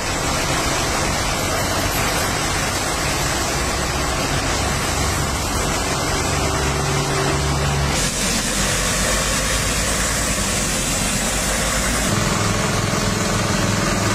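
Truck engines running under a loud, steady hiss of disinfectant spray from vehicle-mounted cannons. The sound changes abruptly twice, about eight and twelve seconds in.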